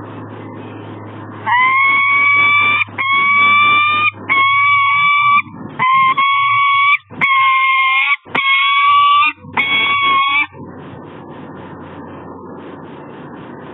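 Peregrine falcon calling: a string of about eight loud, drawn-out calls, each up to a second long and held at an even pitch, with short gaps between them. A steady background hiss runs under the calls and continues after them.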